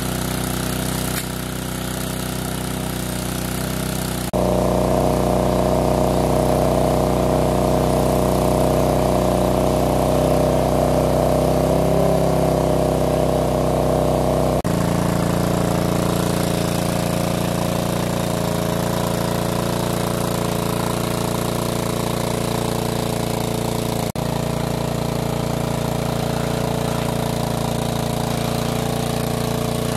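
Small engine driving a large-capacity water pump, running steadily at constant speed. Its tone changes abruptly about four, fourteen and twenty-four seconds in.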